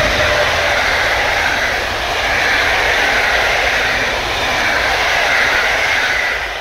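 Passenger coaches of an Intercity train hauled by an EP07 electric locomotive rolling past close by: a loud, steady rush of wheels on rail that drops away as the last coach passes near the end.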